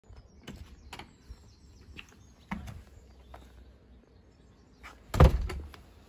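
A glazed front door being opened and shut: a series of light latch clicks and knocks, then the door closing with one loud bang a little after five seconds in.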